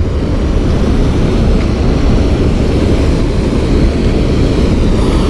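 Wind buffeting the camera microphone: a loud, steady, fluttering low rumble.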